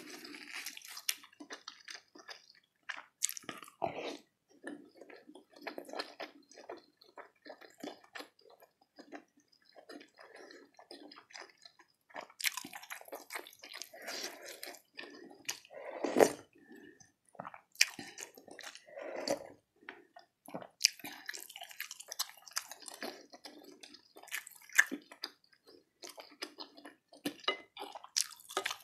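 Close-miked chewing of soft beef fat trimmings in spicy meatball soup: a steady run of irregular short clicks and mouth noises, with one louder one about 16 seconds in.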